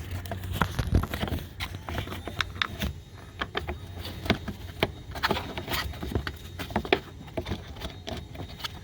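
Irregular clicks, taps and scrapes of a plastic mud flap and its fastener being handled and aligned against a car's wheel arch, some knocks louder than others.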